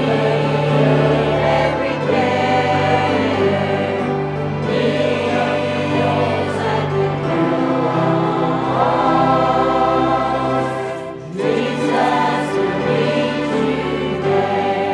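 A church choir singing a hymn in sustained phrases, with a brief break between phrases about eleven seconds in.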